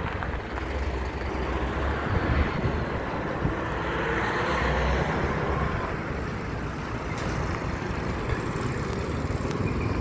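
Road traffic going by, with one vehicle passing louder about four to five seconds in.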